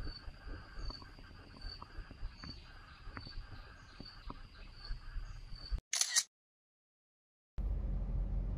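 Outdoor ambience with an insect chirping steadily, a high tone pulsing roughly once every three-quarters of a second, over a low rumble with scattered small ticks. About six seconds in it cuts off after a brief burst, then after a second or so of dead silence the steady road noise inside a moving car begins.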